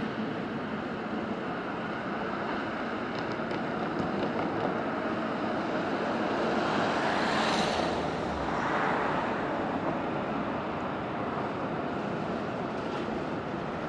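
Airbus A321neo's CFM LEAP-1A jet engines on landing: a steady rushing roar that swells to a peak about halfway through and then eases off.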